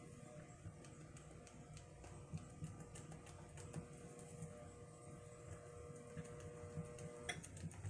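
A spatula stirring melted soap in a metal bowl, with faint scattered clicks and scrapes against the bowl, over a steady faint electrical hum that cuts off about seven seconds in.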